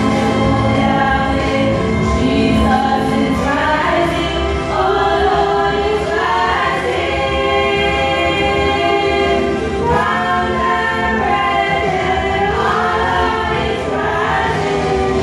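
A group of young female voices singing a gospel song together into handheld microphones, amplified through the church PA, with held notes that slide between pitches.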